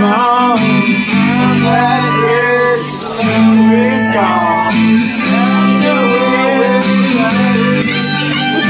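Live band music: an acoustic guitar strummed under a steel guitar's sliding notes, with singing.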